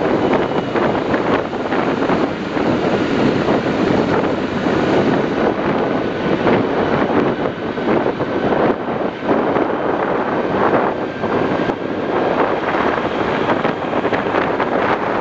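Wind buffeting a camera's microphone on a moving vehicle, a loud steady rush with traffic and engine noise underneath.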